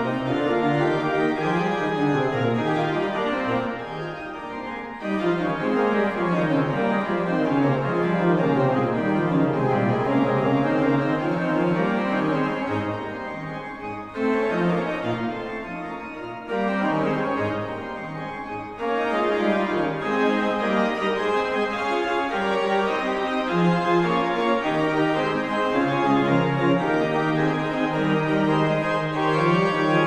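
Background organ music: held chords with a slowly moving melody, softer for a few seconds in places.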